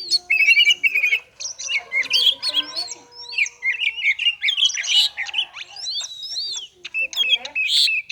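Oriental magpie-robin (kacer) singing a fast, almost unbroken run of varied chirps and whistles, the rapid 'konslet' style of song used to stir other kacer into singing.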